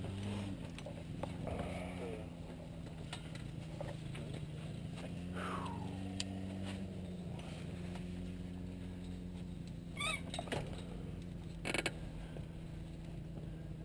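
Distant idling engine of the tow aircraft: a steady low hum. Near the end there are a couple of brief clicks.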